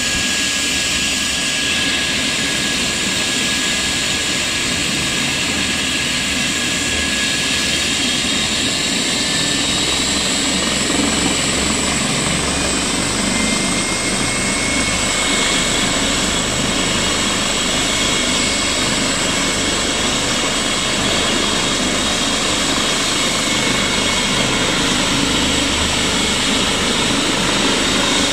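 Twin-engine turbine helicopter running on the ground: a loud steady turbine whine over rotor noise, the whine rising slightly in pitch about halfway through.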